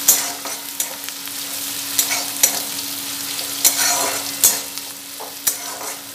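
Chopped onions sizzling in mustard oil in a metal kadai, stirred with a flat spatula that scrapes and knocks against the pan about once a second.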